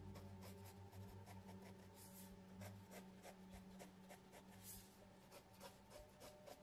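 Mechanical pencil lead scratching on sketch-pad paper in a quick, irregular series of short strokes, faint.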